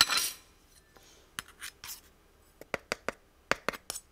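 A metal kitchen tin being opened and handled: a brief scrape at the start, then a scattering of short, sharp clicks from its lid.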